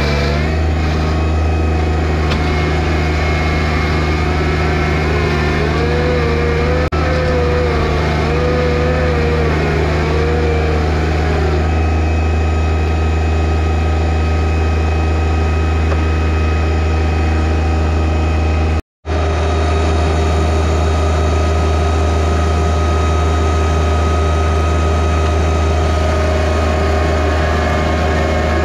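John Deere 1025R compact tractor's three-cylinder diesel engine running steadily. A higher tone wavers up and down in pitch for several seconds about six seconds in. The sound drops out completely for a split second about two-thirds of the way through.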